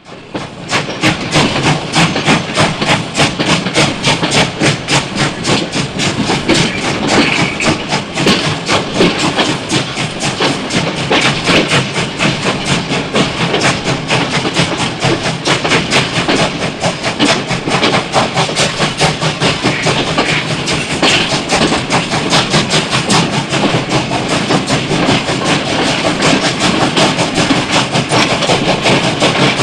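Steam locomotive running, with a fast, even chuffing rhythm and hiss of steam that holds steady throughout.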